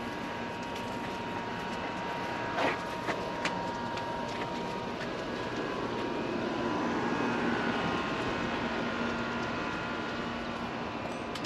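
Steady distant engine drone that grows a little louder around the middle and eases off near the end, with a few faint clicks early in it.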